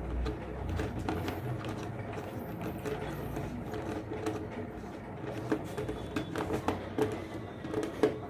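Small scattered clicks and light scraping from handling a wire and a miniature circuit breaker's screw terminal as the neutral wire is pushed in.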